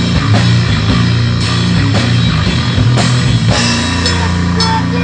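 A rock band playing, with drum kit and guitar. A busy low riff gives way to held chords about three and a half seconds in.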